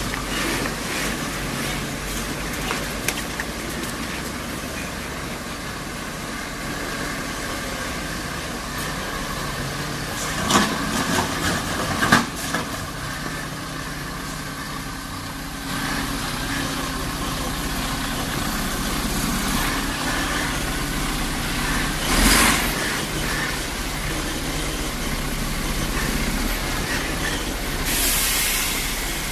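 Loaded Mercedes-Benz logging truck's diesel engine running as the truck and its log trailer roll slowly past over a rough, wet track, with a few sharp knocks and clunks from the rig about halfway through and again later.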